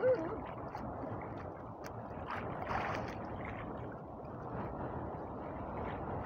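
Sea water sloshing and lapping against a small boat's hull, with a louder splash about two and a half seconds in.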